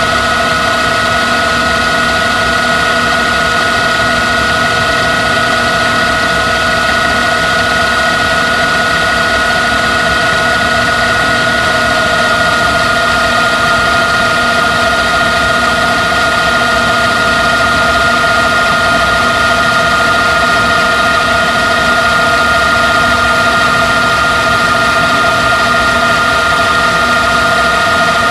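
LG V194H DVD/VCR combo's tape transport winding a T-120 VHS cassette at high speed in fast-forward or rewind: a steady mechanical whine with a few held tones that drift slightly in pitch.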